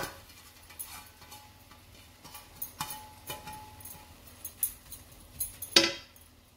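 Wooden spatula knocking and scraping against a nonstick wok while drumstick leaves and tomatoes are stirred. It makes a string of irregular clicks and taps, the loudest at the very start and again near the end, with the pan briefly ringing after some knocks.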